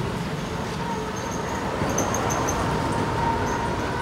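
Street traffic: vehicle engines running as a steady low rumble, with a thin steady tone above it and a few short, high chirps.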